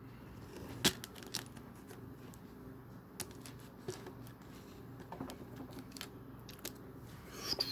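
Small plastic Lego pieces being handled and pressed together: scattered sharp clicks and light taps, the sharpest about a second in.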